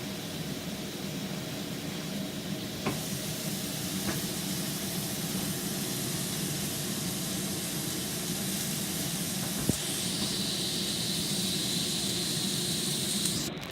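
Scallops frying in hot oil in a wok over high heat: a steady sizzle, with a few light knocks.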